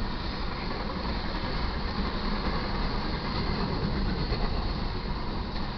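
Double-stack intermodal freight cars rolling past close by: a steady noise of steel wheels running on the rails, with no distinct wheel beats.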